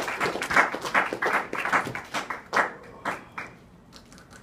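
Applause from a group of people clapping. After about two seconds it thins to a few scattered last claps, then dies away.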